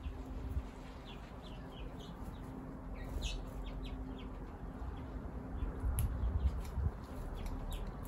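Small wild birds chirping in short scattered notes, thickest in the first half, with a few sharp clicks, the loudest about six seconds in.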